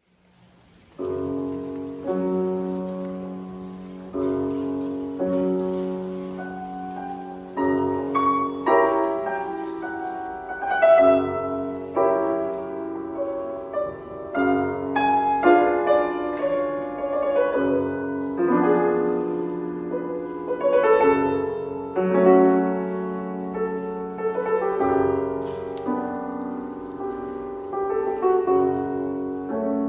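Solo piano playing the introduction to an art song: chords struck about every one to two seconds, starting about a second in, with a melody above them, before the voice enters.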